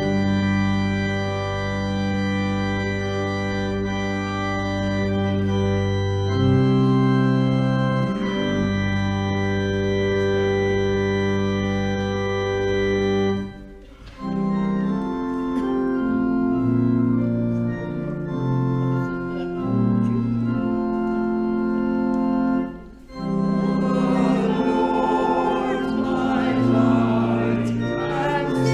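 Church organ playing slow, sustained chords, breaking off briefly twice, about halfway and two-thirds of the way through. Near the end, voices singing join in over the organ.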